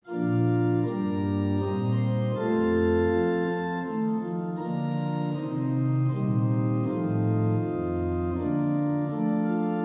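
Organ music: slow, full sustained chords with a moving bass line, starting abruptly at the outset.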